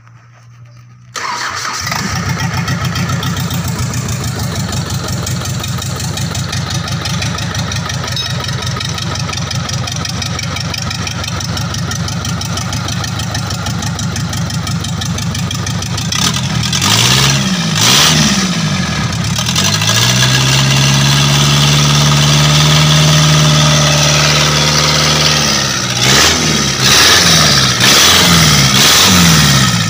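Rebuilt diesel engine of a Mitsubishi PS 125 truck starting about a second in, then idling steadily. Later it is revved up and down several times, held at higher revs for a few seconds, then blipped quickly again near the end.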